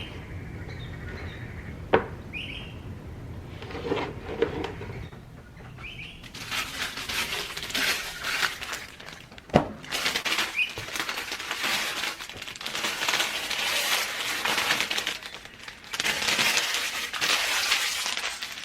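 Household items being handled: a few sharp clicks and knocks, then from about six seconds in a long stretch of crinkling, rustling noise that breaks off briefly near the middle of it.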